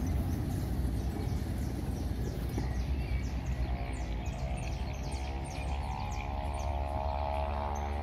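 Small birds chirping in quick, short high chirps over a steady low rumble. From about halfway through, a cow starts a long, low moo that grows louder toward the end.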